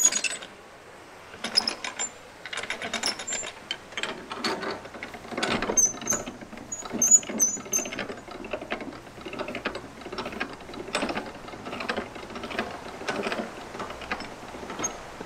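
Canal lock paddle gear being wound up with a windlass: the pawl clicks over the ratchet wheel in runs of quick clicks, with short pauses between turns, as the paddles are opened to empty the lock.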